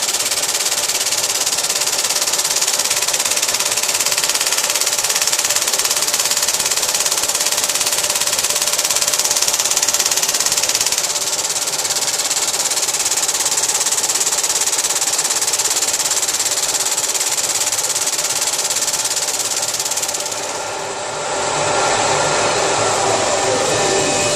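Lathe running with a steady mechanical noise and a strong hiss. About 21 s in the sound briefly drops and changes character, and a tone then falls in pitch near the end.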